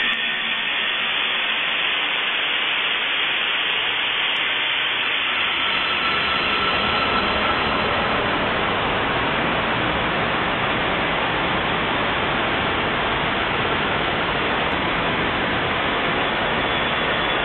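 Steady, loud static-like hiss with no pitch or rhythm. At first it sits mostly in the upper range, then deepens a few seconds in and holds even.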